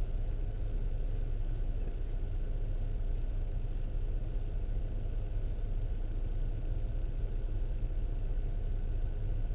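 Steady low rumble of an idling vehicle engine, even in level throughout.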